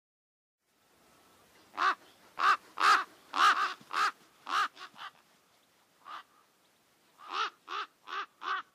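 A crow-family bird cawing. A quick run of about nine caws, then a single caw, then four more caws in a row near the end.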